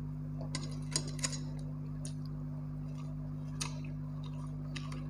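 Eating by hand: a handful of short, sharp clicks and small crackles at uneven intervals, as fingers pick apart roasted dried fish on a plate while she chews. A steady low hum runs underneath.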